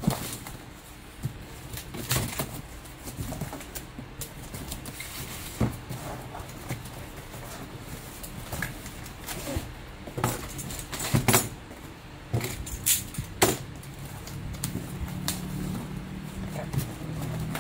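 Cardboard box being packed by hand: rustling and scraping of the cardboard and bubble wrap, with sharp knocks and snaps as the box flaps are bent and folded, several of them close together midway through. A low steady hum comes in near the end.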